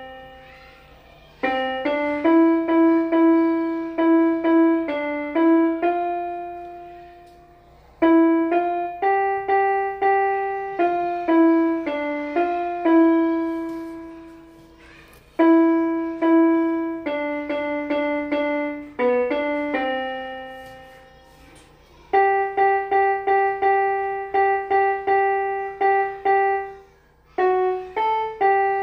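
Small electronic keyboard played with a piano voice, one note at a time: a slow melody in short phrases, each ending on a held note that fades away before the next phrase starts.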